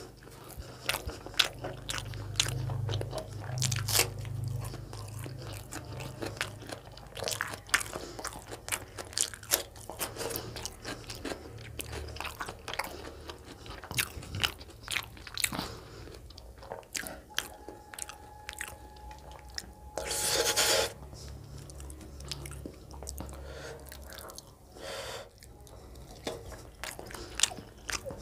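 Close-miked chewing of chicken gizzard curry and roti, with many wet mouth clicks and smacks at an irregular pace. A louder, noisier sound under a second long comes about twenty seconds in.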